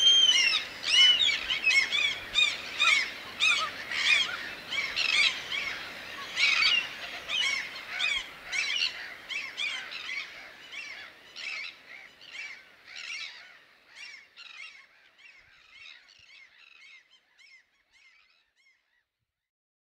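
A flock of birds calling: many short, overlapping honking calls, several a second, fading out gradually to silence near the end.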